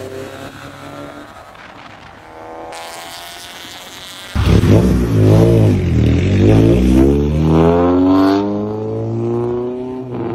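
Honda Civic Type R EK9's naturally aspirated 1.6-litre VTEC four-cylinder running quietly at first. About four seconds in it comes in suddenly loud, and its pitch climbs steadily under hard acceleration.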